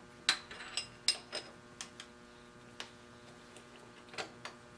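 Scattered light clicks and taps of metal tooling, such as vise parts and hardened parallels, being handled at a milling machine, over a faint steady hum.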